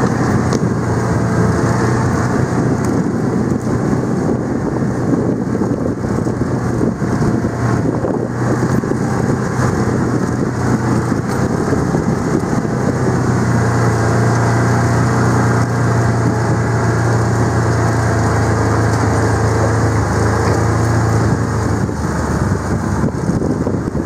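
Engine of a slowly driven vehicle running steadily over a rough dirt track, with a constant rumble and rattle from the ride; the low engine hum eases about 22 seconds in.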